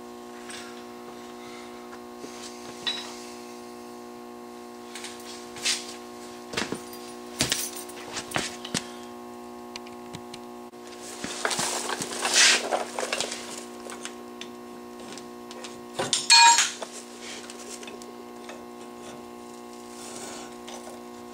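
Metal hand tools and parts being handled: scattered clinks and knocks, a stretch of rattling and scraping a little past halfway, and a loud ringing clang later on, over a steady electrical hum.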